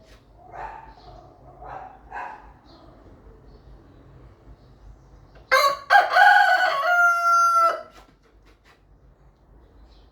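Rooster crowing once: a loud cock-a-doodle-doo lasting about two seconds, starting a little past the middle and ending on a held higher note. It is preceded by three short, quieter calls in the first couple of seconds.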